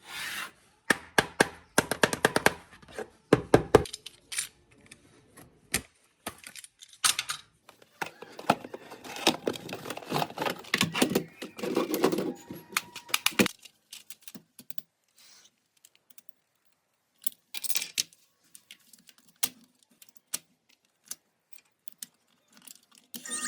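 Hard plastic toy parts being handled and worked apart: irregular clicks, taps and knocks, dense for the first half, then sparse, scattered clicks with quiet gaps.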